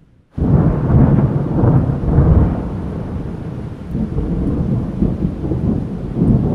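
Heavy rain with a long, deep rolling rumble of thunder. It cuts in suddenly after a moment of silence about half a second in, is loudest over the next two seconds, then slowly eases off with a few further swells.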